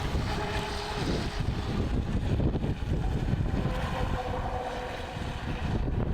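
Small radio-controlled boat's electric motor whining, its pitch rising and falling as the throttle changes, with wind buffeting the microphone.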